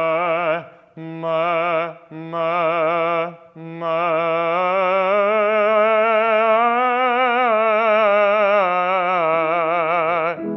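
A trained singing voice demonstrating an open 'ah' vowel: three short sung notes, then one long held note with even vibrato that lifts slightly in pitch midway and settles back before it stops.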